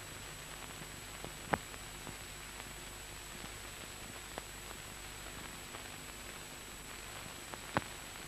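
Faint steady hiss and low hum of an old film soundtrack, with a thin high-pitched whine underneath. Two brief clicks, one about a second and a half in and one near the end.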